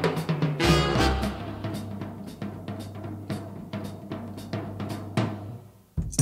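Fast drumming in a Polynesian style, a rapid beat with deep drum hits and a heavy, loud stroke about a second in. The drumming fades out toward the end and stops.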